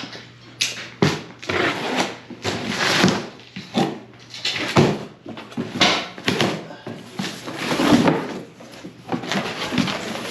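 An irregular run of rustles and knocks from things being handled and moved about, with some sharper knocks among them.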